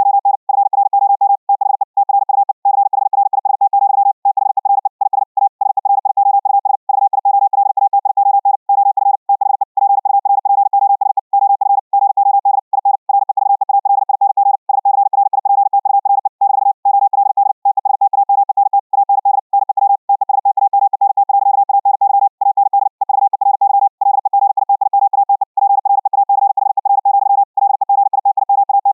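Morse code (CW) at about 60 words per minute: a single steady-pitched tone keyed on and off very rapidly, with short gaps between characters and words. The audio is carried as a Vorbis-encoded RTP stream over the internet and played back from a Raspberry Pi 4 receiver.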